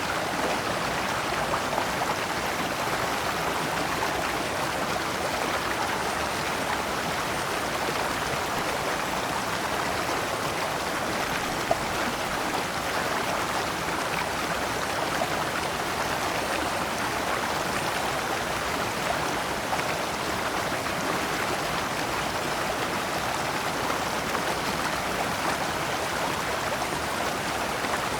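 Shallow rocky stream running steadily, water splashing and trickling over stones in small cascades.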